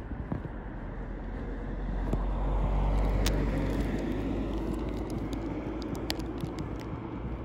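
A vehicle passing, its rumble swelling to a peak about three seconds in and then slowly fading, with scattered light clicks over it.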